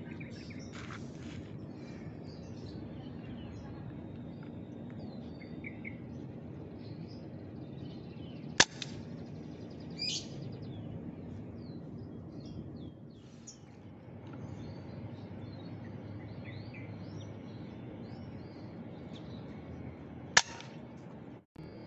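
Two sharp air rifle shots about twelve seconds apart, over a steady background hiss with small birds chirping throughout.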